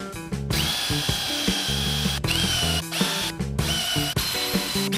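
Cordless drill boring into the end of a 5/8-inch steel rod, its motor whining steadily with a few brief stops and restarts.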